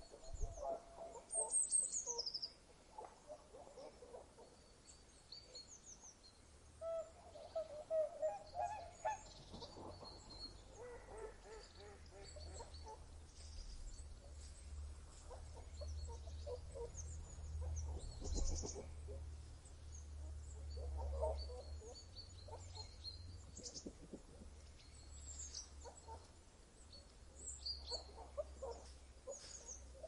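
Birds calling: scattered short high chirps, a quick falling whistle about two seconds in, and a run of lower call notes around eight seconds, over a faint low rumble.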